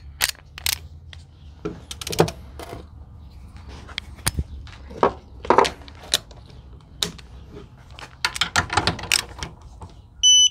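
Metal tools clicking and clacking as a ratchet and socket are handled and fitted. Near the end, the AC Delco digital torque adapter gives one short, high electronic beep as torque is applied.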